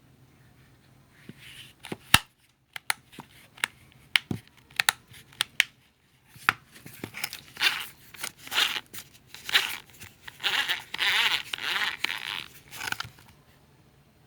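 Handling noise: a run of irregular sharp clicks and knocks, then a series of rustling, crinkling bursts, with no motor running.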